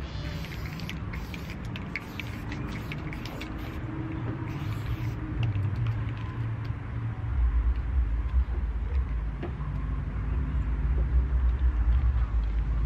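Aerosol spray-paint can hissing in short bursts against a car's door panel. About halfway through, a low rumble sets in and continues.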